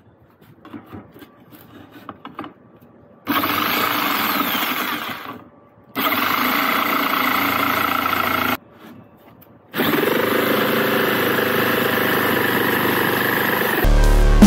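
Ingco 650 W jigsaw cutting plywood, running steadily in three stretches that each start abruptly, the first tailing off and the others stopping suddenly, after a few light knocks. Music with a heavy beat comes in near the end.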